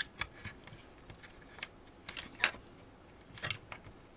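Small clicks and scrapes of a metal pick against the plastic latches of a Dyson V8 battery pack's cell holder, pushing the clips down to free the lid. The clicks come scattered, with a louder scraping cluster a little over two seconds in.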